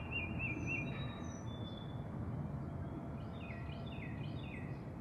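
Birds chirping over a steady low rumble of outdoor background noise: a short warbling run of notes at the start, a few clear whistles about a second in, then a quick series of falling chirps near the end.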